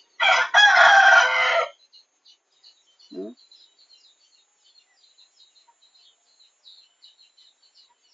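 A rooster crowing once, a loud call of about a second and a half. Faint high chirps of small birds continue afterwards, with one short lower call about three seconds in.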